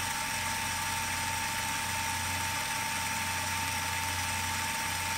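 Steady hiss of static with a constant mid-pitched tone and a low hum, unchanging throughout.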